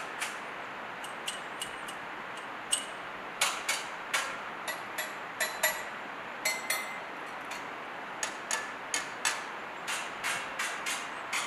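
Irregular sharp clicks and knocks of hard objects, sparse at first, then about two to three a second. Some carry a brief high ringing tone. They sit over a steady hiss.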